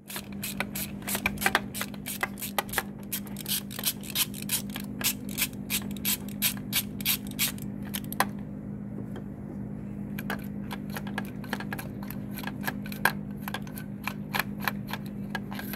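3/8-inch hand ratchet clicking in quick, irregular runs of ticks, its pawl ratcheting on the back-swings as a spark plug is loosened by hand from the engine's aluminium cylinder head.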